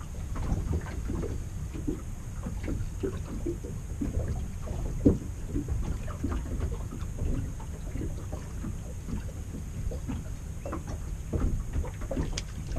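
Wind rumbling on the microphone and water slapping against a small boat's hull, with scattered light knocks and clicks and one sharper knock about five seconds in.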